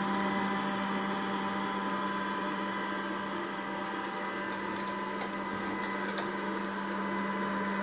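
Robot vacuum running across a laminate floor: a steady motor hum with a low held tone and fainter higher whine.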